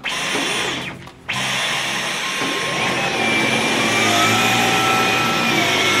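Dyson V11 cordless stick vacuum running on carpet with its motorised brush head: a steady motor whine over a rush of suction. It drops out for a moment about a second in, then runs on, the whine edging slightly higher around the middle.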